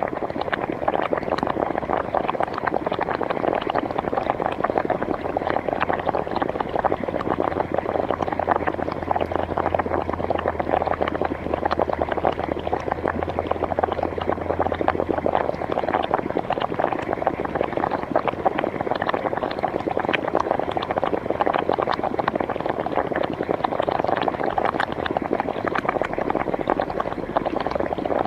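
Hot spring water bubbling steadily: a dense, continuous stream of small pops and gurgles, with a low rumble underneath for several seconds in the middle.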